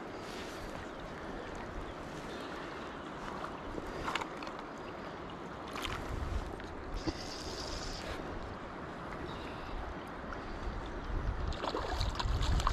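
River water flowing and lapping around a wading angler, with wind buffeting the microphone in low gusts about six seconds in and again near the end. A few sharp splashes or knocks stand out.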